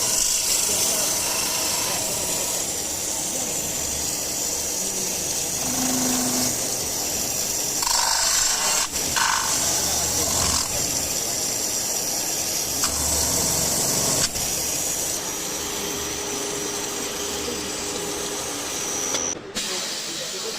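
Factory machinery noise from marine propeller production: a steady hiss with a low machine hum, changing abruptly several times.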